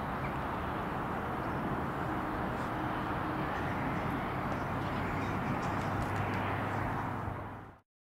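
Diesel locomotive, an Irish Rail 071 class with its EMD engine, heard running as it moves away down the line: a steady low drone over a broad rumble, with the low hum swelling in the second half. The sound fades out quickly near the end.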